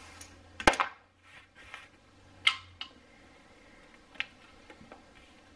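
Casino chips and playing cards being handled on a felt blackjack table as a losing bet is collected. One sharp clack comes about a second in, then a few fainter clicks as the chips go into the dealer's chip rack.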